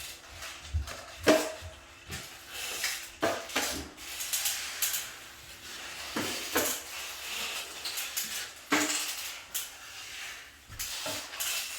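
Metal drywall finishing tools scraping joint compound along a corner, in irregular short strokes with occasional metallic clinks.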